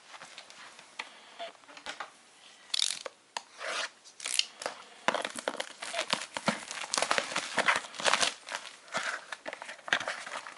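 Retail cardboard box and plastic packaging of a PCIe wireless card being opened by hand: scratchy tearing and crinkling, a few rustles at first, then busy handling from about five seconds in.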